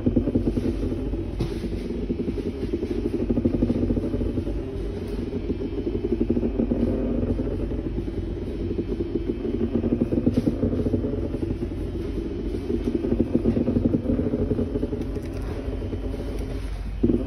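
Banana-shaped vibrator buzzing on a strong setting against a hard tabletop, creeping across it as it shakes, the buzz swelling and easing every few seconds. It runs on without cutting out: the power cut a buyer reported does not show.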